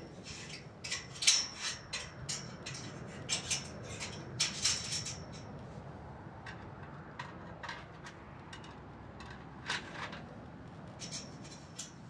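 Irregular sharp metal clicks and scrapes from hand work at a joint of a galvanized steel greenhouse pipe frame, some coming in quick runs and a few ringing briefly.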